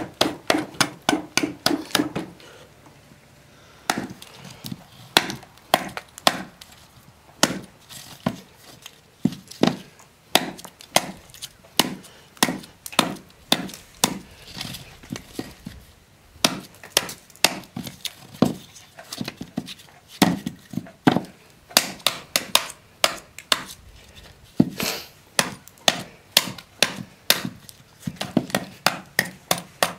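Homemade adze, forged from a horseshoe rasp, chopping into a wet, rotten block of wood to hollow it out. A run of sharp chopping strokes, about two a second, with short pauses about three seconds in and again midway.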